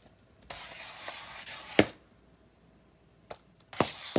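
Cat scampering on a tiled floor: a few sharp knocks and thuds, the loudest just under two seconds in and another near the end, with a rush of noise lasting about a second and a half just before the first loud one.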